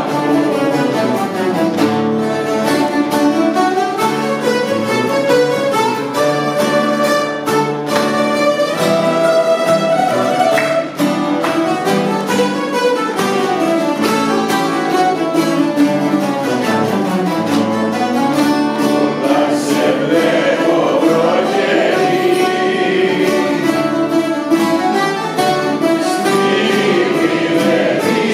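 A bouzouki ensemble playing a rebetiko song, with a group of voices singing along.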